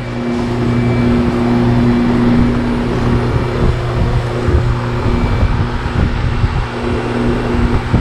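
Goodman GSH13 heat pump outdoor units running in heat mode: a steady compressor hum under the rushing of the condenser fans. Wind buffets the microphone with uneven low rumbling.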